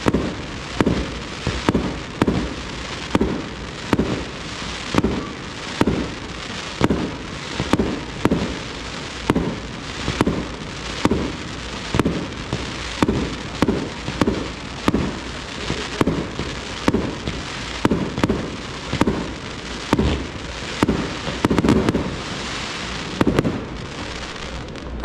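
Fireworks display: aerial shots firing in a steady, even rhythm, about four every three seconds, each a sharp bang followed by crackle. Near the end a denser hiss and crackle fills in between the shots.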